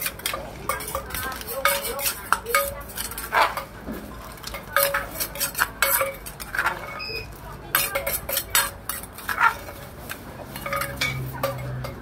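Metal spoon knocking, clinking and scraping against a large earthenware mortar as green papaya salad is tossed and mixed, in quick irregular strikes. A low steady hum joins briefly near the end.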